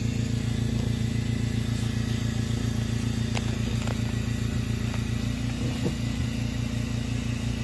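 Steady low machine drone from the air compressor and oxygen equipment running a soft-shell hyperbaric chamber, with a fast flutter in the hum.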